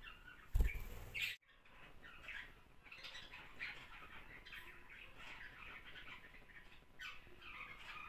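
Pet budgerigars chirping and chattering in a continuous warble. About half a second in, a loud thump and rustle lasts under a second and then cuts off abruptly.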